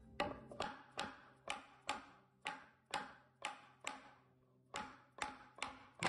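A mallet knocking on wooden boards: about a dozen sharp taps, roughly two a second, with a short pause about four seconds in.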